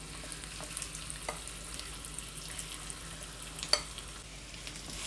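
Marinated chicken pieces going into hot olive oil in a nonstick wok and sizzling, with a steady hiss and light crackling. One sharper click about three and a half seconds in.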